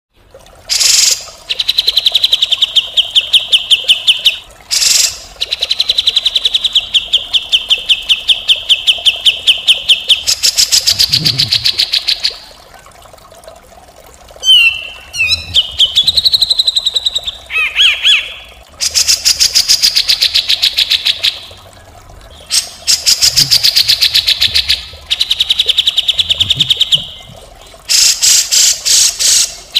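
Grey-cheeked bulbul (cucak jenggot) calling in long runs of very rapid, rough rattling notes, the coarse 'mbeset' call. Each run lasts a few seconds, with short pauses between, and a few gliding whistled notes come about halfway through.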